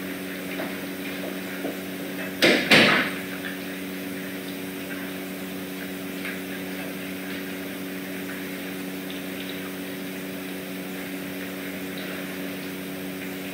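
A steady mechanical hum with a faint hiss, broken about two and a half seconds in by a loud, short double clatter.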